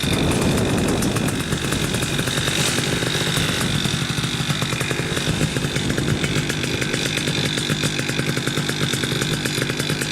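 Nitro 200 two-stroke paramotor engine running steadily, with a thin high whine over the engine note.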